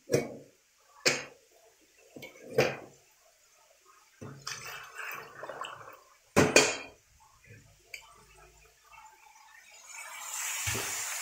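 Metal cookware being handled: several sharp clanks with brief ringing and quieter rattling between them. Near the end a steady hiss sets in.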